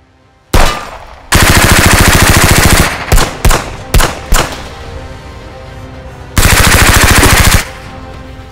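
Dubbed gunfire sound effects: a single shot, then a long burst of rapid automatic fire, four separate shots, and a second burst of automatic fire near the end.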